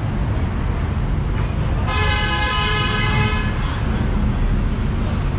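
A vehicle horn sounds once about two seconds in, held steady for about a second and a half, over a steady low rumble of road traffic.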